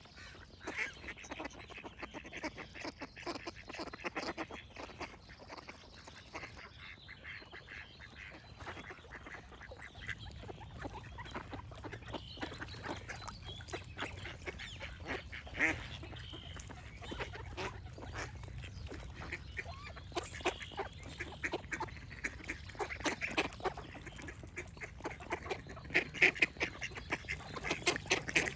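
Ducks quacking in quick, repeated calls, growing louder near the end, with faint birdsong behind them early on.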